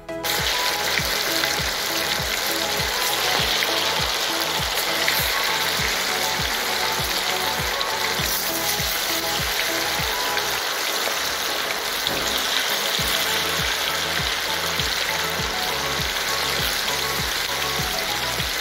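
Chicken pakoras deep-frying in hot oil: a loud, steady sizzle of bubbling oil around the freshly added pieces. Background music with a steady beat runs underneath.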